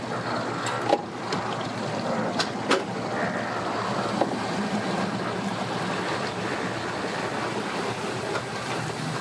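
Suzuki outboard motor idling steadily as the boat is eased in at low speed, with a few sharp knocks now and then.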